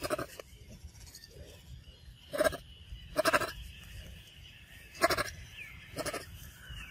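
Monkey calls: five short, pitched cries at uneven intervals, with a faint falling whistle near the end.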